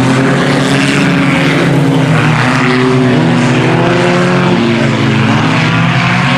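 A pack of IMCA Sport Compact race cars running laps, their four-cylinder engines loud and steady, with several engine notes overlapping and slowly rising and falling in pitch.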